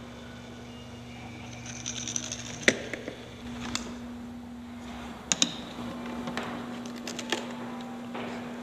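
Sharp clicks and knocks over a steady low electrical hum: one about three seconds in, a pair about five and a half seconds in, and a quick run of several near the end.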